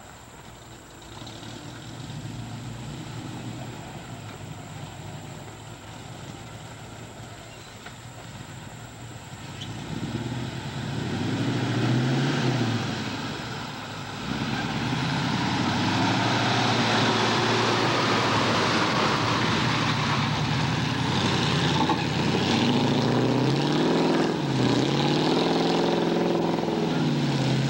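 Lifted 1979 Chevy 4x4 pickup's engine, faint at first, then louder from about ten seconds in as the truck comes close. It revs up and down repeatedly near the end as the 38-inch Super Swamper mud tires spin in mud and throw it up.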